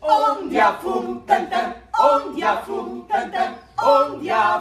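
Unaccompanied singing voices, a cappella, in short sung phrases with brief breaks between them, starting suddenly and loud.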